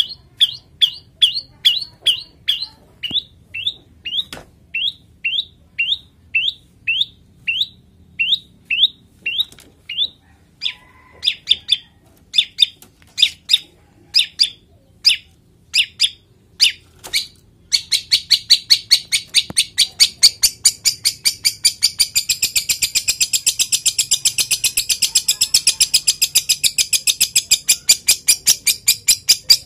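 Long-tailed shrike (cendet) calling: a steady run of short 'toet' notes, about one and a half a second. A bit over halfway through it breaks into a fast, harsh rapid-fire chatter that goes on to the end. This is the 'toet' lure call and the song of a male cendet in breeding condition.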